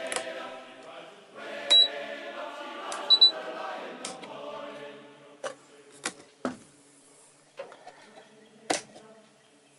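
Switches on a boat's DC electrical panel clicking several times. The two loudest clicks each carry a short high beep. Faint steady tones sit underneath and fade out about halfway.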